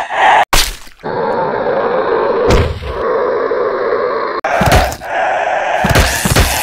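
Dubbed fight sound effects: a continuous rough groaning sound with about five hard whacks and thunks laid over it, the first about half a second in and two close together near the end.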